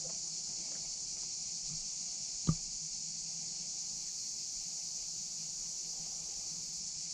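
Crickets chirring steadily in a high-pitched drone, with a single sharp click about two and a half seconds in.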